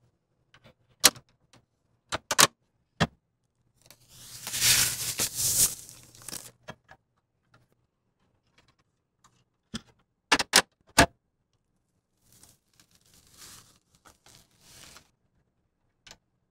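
Panels of a Corsair Crystal 570X case being fitted back on: a magnetic-looking top dust filter and tempered-glass panels set in place with a series of sharp clicks and knocks, in two clusters about a second in and about ten seconds in. Between them come two stretches of rustling, scraping noise, the first about four seconds in and the second from about twelve to fifteen seconds.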